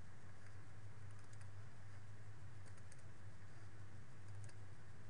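Faint light clicks in a few small clusters, scattered through, over a steady low electrical hum.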